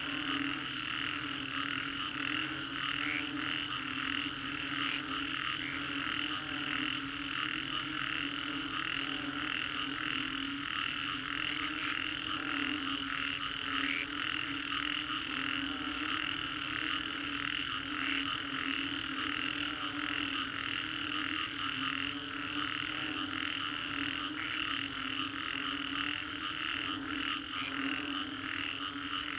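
Dense chorus of many frogs calling after a storm: rapid, overlapping repeated high notes over a steady lower croaking, with no let-up.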